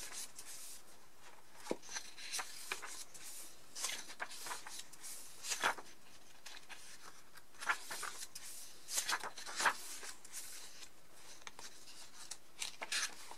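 Paper pages of a planner being turned one after another, each turn a short papery swish, several times with pauses between.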